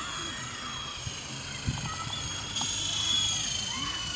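Electric motors of an Esky Big Lama coaxial RC helicopter whining steadily in flight, with the pitch drifting slightly down and up.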